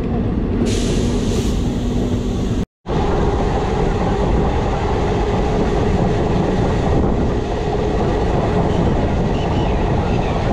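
Diesel multiple unit passenger train running at speed, heard from its open doorway: a steady rumble of wheels on the track with a steady hum. A high hiss rides over it for about two seconds near the start, and the sound cuts out abruptly for a split second about three seconds in.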